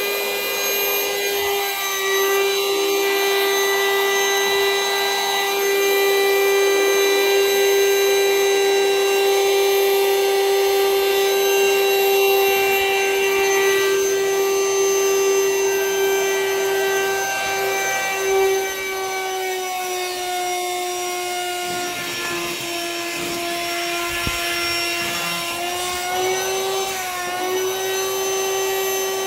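Electric vacuum motor running with a steady high whine, sucking the air out of a vacuum-seal storage bag of plush toys. Its pitch sags slightly about two-thirds of the way through and wavers near the end as the load on the motor changes.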